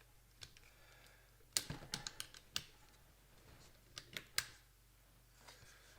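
Faint, scattered sharp clicks and light knocks of hard tools and plastic parts being handled on a workbench: a quick cluster of them about a second and a half to two and a half seconds in, then two more about four seconds in.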